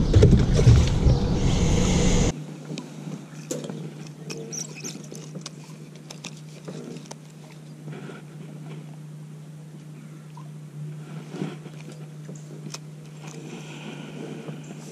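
A loud rumble of wind or camera handling that cuts off abruptly about two seconds in. Then a steady low hum with scattered small clicks and ticks as a spinning rod and reel are handled.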